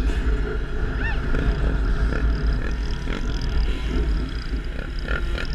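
Sport ATV engine running under way, mixed with heavy wind buffeting on the helmet-mounted microphone, with a brief rise and fall in engine pitch about a second in.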